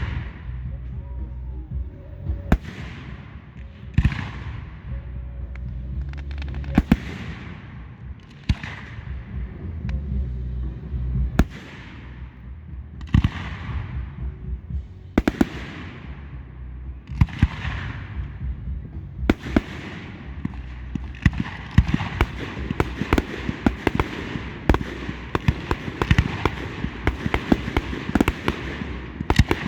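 Fireworks display: shells bursting about every couple of seconds, each bang trailing off in a fading crackle. About two-thirds of the way through they build into a dense barrage of rapid bangs and crackling.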